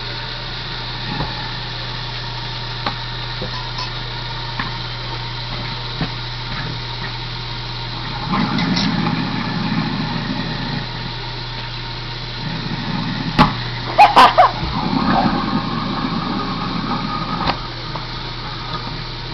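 Kitchen garbage disposal running with a steady motor hum, grinding cucumbers, citrus fruit and a sandwich. The grinding gets rougher in the second half, with a few loud sharp clatters about two-thirds of the way through.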